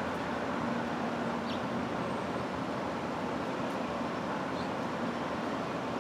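Steady outdoor rush of wind and distant traffic with a low hum underneath. Two faint, short high chirps, about a second and a half in and near the end.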